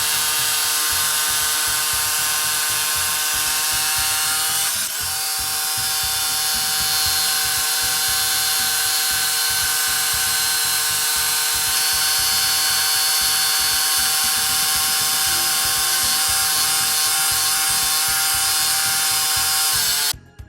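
Reciprocating saw running with a steady motor whine, its blade cutting steel. The whine dips briefly about five seconds in and cuts off abruptly near the end.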